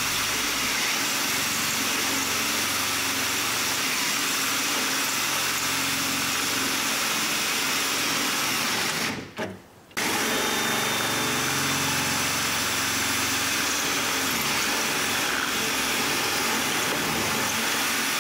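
Electric drill with a 1/4-inch bit running steadily as it drills out the center of the rivet holding the door handle. It stops briefly about halfway through, then starts up again.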